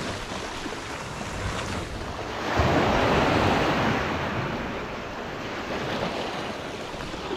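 Sea swell surging and washing against the rocky shore below, one wave building about two and a half seconds in and then easing away, with some wind on the microphone.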